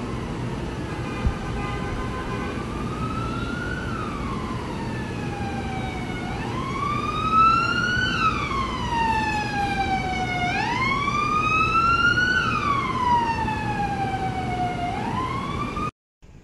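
Emergency vehicle siren wailing, its pitch climbing and then sliding down again about every four and a half seconds over a steady low rumble. It gets louder after the first few seconds and cuts off suddenly near the end.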